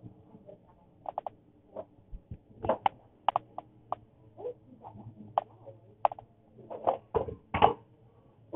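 Irregular light clicks and taps of handling close to the microphone, as a glass serum dropper bottle and hands knock and rub near the phone, with the loudest taps near the end.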